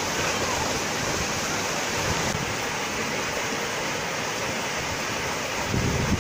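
Small waterfall spilling down a granite rock chute: a steady rush of falling and splashing water. A brief low rumble of wind on the microphone comes near the end.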